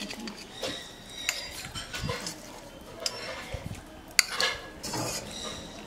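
A metal spoon clinking and scraping against a stainless-steel bowl and ceramic plates while serving curry. Several separate clinks, some briefly ringing, with the sharpest about four seconds in.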